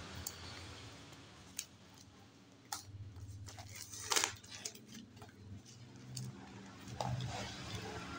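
Hands handling a cardboard smartwatch box and its plastic packaging: scattered crinkles, taps and rustles, the loudest about four seconds in as the box is lifted.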